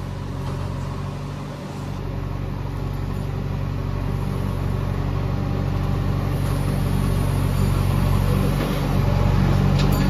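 JCB 3DX backhoe loader's diesel engine running steadily under load, getting gradually louder as the backhoe arm swings a bucket of mud over to the tractor trolley.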